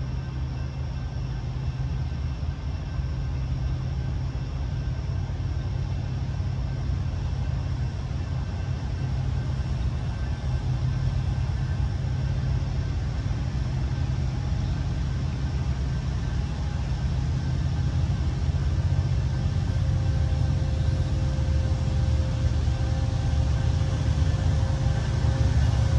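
A low, steady rumble that slowly grows louder, with a faint steady tone coming in during the second half.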